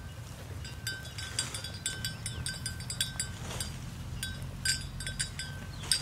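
Bells worn by grazing water buffaloes clinking irregularly, each stroke ringing at the same few pitches, over a steady low rumble.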